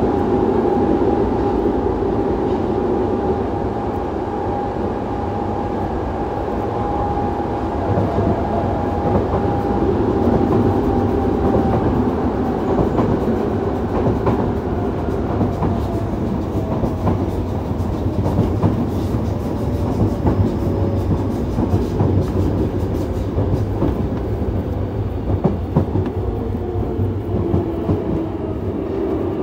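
Yokohama Municipal Subway 3000A train running, heard from inside the passenger car: the whine of its Mitsubishi GTO-VVVF traction system over a steady rolling rumble. The whine drifts slowly down in pitch, and wheel-on-rail clicks come more often in the second half.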